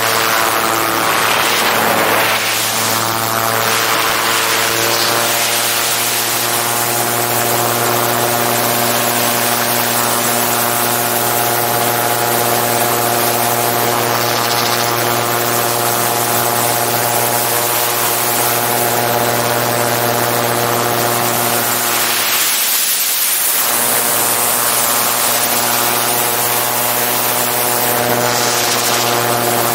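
Gyroplane's engine and pusher propeller running steadily in flight, heard from a camera mounted on the airframe, with heavy wind rush on the microphone. The engine note briefly fades about three-quarters of the way through, then comes back.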